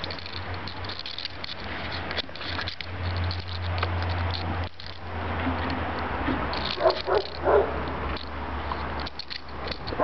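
Kangal puppy gnawing and crunching on a stick, with a few short puppy yelps about seven seconds in.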